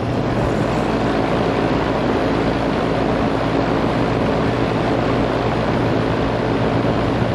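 Outdoor unit of a 1998 Heil Villager 2-ton air conditioner running. Its Copeland reciprocating compressor hums steadily under the even rush of the condenser fan.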